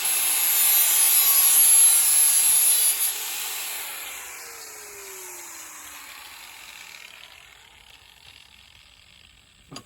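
DeWalt power sander grinding a steel machete blade, then switched off about three seconds in and winding down, its pitch falling as it coasts to a stop.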